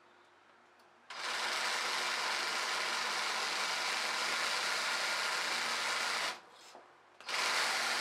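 Reciprocating saw running pressed through a rag against a steel work table, shaking the table and mold so the molten iron fills the casting. It starts about a second in, stops for about a second after six seconds, then starts again.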